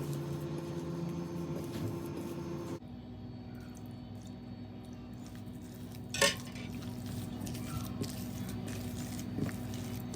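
Light clinks of kitchenware and dishes over a steady background hum, with one sharp clink about six seconds in and a couple of softer ones later.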